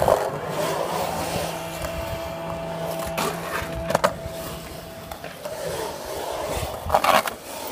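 Skateboard wheels rolling on a concrete bowl as the rider carves its walls, with two sharp clacks a little before the middle and a short louder scrape near the end.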